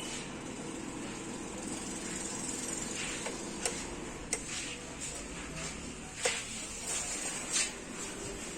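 Fan heater running with a steady whir, with a few sharp clicks and short rustles over it.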